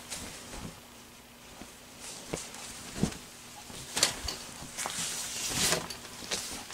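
A large piece of fabric rustling and swishing as it is lifted, folded in half and flapped over a cutting table, in several separate swishes, with a few brief knocks.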